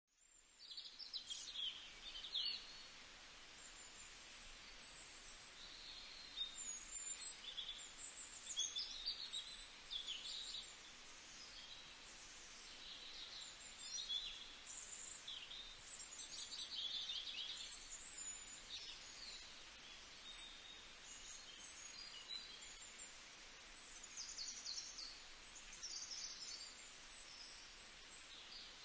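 Faint birdsong: many birds chirping and trilling on and off over a steady outdoor hiss, fading in during the first second.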